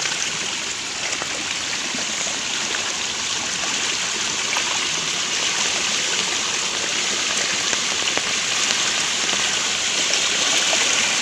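Rainwater rushing down a narrow, rain-swollen channel: a steady hiss of flowing water, growing a little louder near the end.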